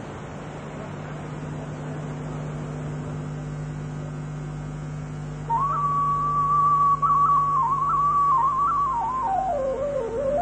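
A low steady hum, then about halfway through a single clear whistle tone comes in. It holds and wavers, dips lower near the end and rises again.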